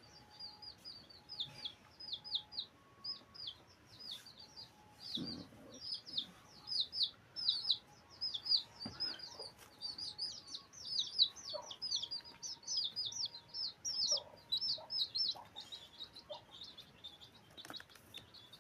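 Many small birds chirping: a dense stream of rapid, high, overlapping chirps, with a few soft thumps.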